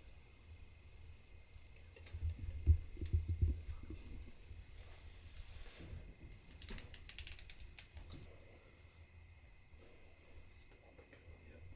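Crickets chirping in the evening, a regular chirp about twice a second over a steady high trill. About two to four seconds in come a few low thumps and rustles, the loudest sounds here.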